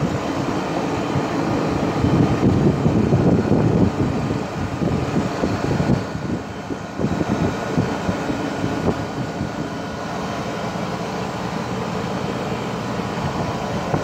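Outdoor unit of a 2012 Rheem 4-ton heat pump running in cooling mode: the rush of the condenser fan's air, with a faint steady hum over it. The air buffets the microphone unevenly, hardest in the first few seconds.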